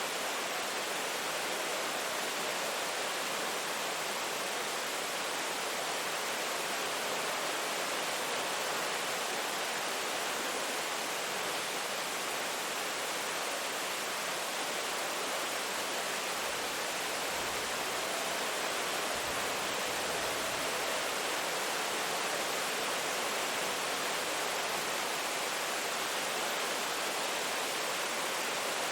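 Steady rain falling, an even unbroken hiss with no single drops or gusts standing out.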